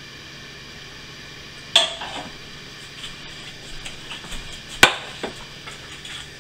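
Dishes being handled on a kitchen countertop: a sharp knock about two seconds in, light clinks, then a louder clack of a ceramic plate being set down on the counter near the end.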